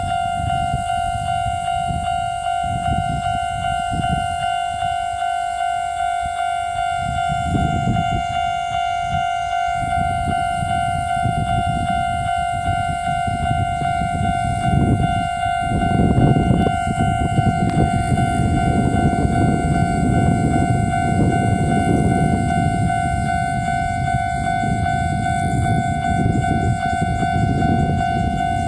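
Japanese level-crossing warning bell dinging steadily over and over, while a Chichibu Railway train passes over the crossing with a low rumble of wheels on rails that builds and is loudest from about halfway through.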